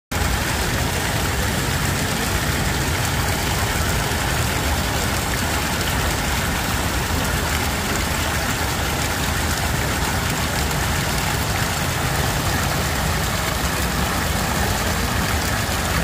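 Fountain water gushing from a stone spout and splashing into the basin, a steady rushing that never changes, heavy at the low end.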